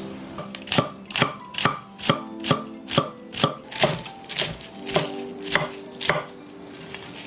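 A knife chopping on a cutting board: about a dozen steady, even strokes, a little over two a second, stopping about a second before the end.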